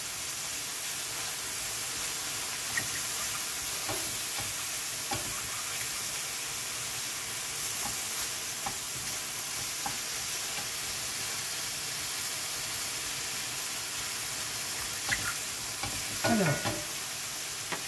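Button mushrooms sizzling in butter in a stainless steel frying pan as they brown, stirred with a wooden spoon that now and then knocks lightly on the pan. A short vocal sound near the end.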